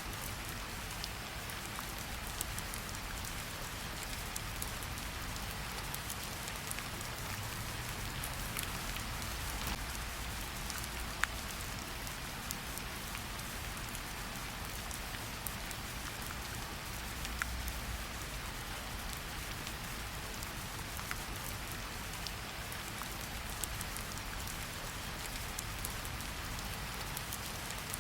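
Steady rain falling in a forest: an even hiss, with occasional single drops standing out as sharp taps.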